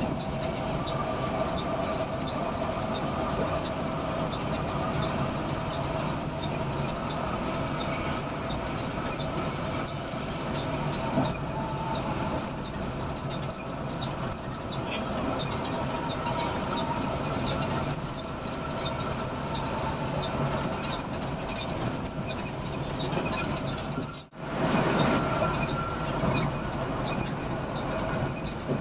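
Steady engine and road noise inside a moving intercity coach at highway speed, with a brief faint high whistle about halfway through and a momentary break in the sound near the end.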